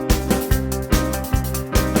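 Upbeat background music with a steady beat, about two and a half beats a second.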